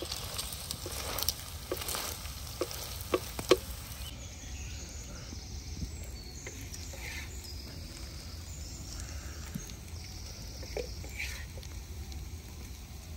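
Food sizzling in a frying pan, with several sharp knocks of a utensil against the pan in the first four seconds.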